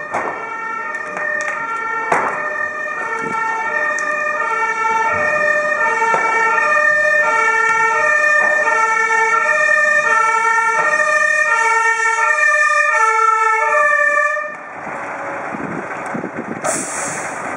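Fire engine's German two-tone siren (Martinshorn) alternating steadily between a high and a low note and growing louder as it approaches, then cutting off suddenly about fourteen seconds in. A steady noise follows, with a short hiss near the end.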